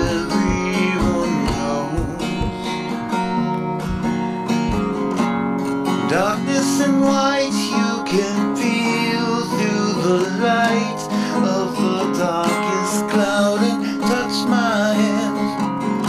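Acoustic guitar playing an instrumental passage of a song, strummed chords in the first few seconds, then moving note lines with some notes sliding in pitch.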